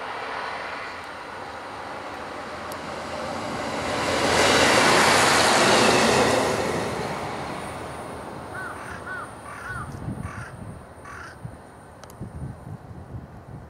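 JR Hokkaido KiHa 54 diesel railcar passing close by, the rumble of its engine and wheels on the rails swelling to a peak about five seconds in and then fading away. Crows caw several times in the second half.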